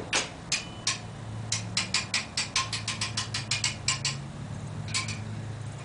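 Sharp metallic clicking from a hand chain hoist hung from a tractor loader bucket, a few spaced clicks and then a quick run of about five a second, as it takes up load on a heavy lathe. Underneath, the Oliver tractor's engine idles with a steady low hum.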